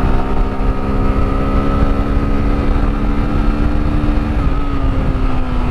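Motorcycle engine running at steady revs while the bike is ridden along a dirt track, its pitch dipping slightly about four seconds in as the rider eases off. A heavy low rumble runs underneath.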